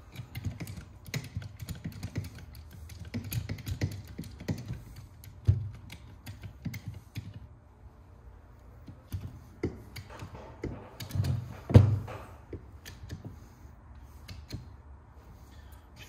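Hand-pumped hydraulic crimper being worked to crimp a lug onto 1/0 battery cable: irregular runs of small clicks as the handle is pumped, with two louder knocks, about five and a half and twelve seconds in, matching the two crimps made on the lug.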